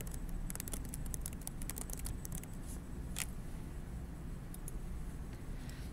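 Computer keyboard typing: a quick run of key clicks over the first two and a half seconds, then a single louder click about three seconds in and a few scattered clicks after, over a steady low hum.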